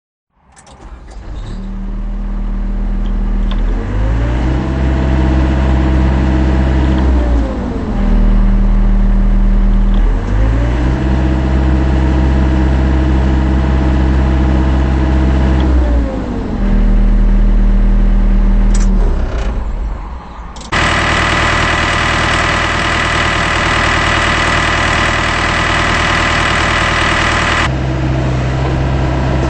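John Deere 80 midi excavator's diesel engine running at idle and revved up twice, each time for a few seconds before settling back. About twenty seconds in, the sound changes abruptly to a louder, harsher engine sound that continues.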